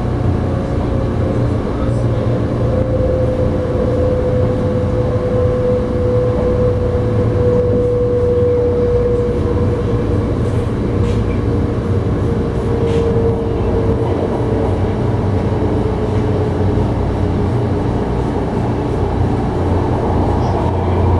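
Tren Urbano metro train running, heard from inside the car: a steady deep rumble of wheels on rail with a thin motor whine that slides slowly lower as the train slows towards a station.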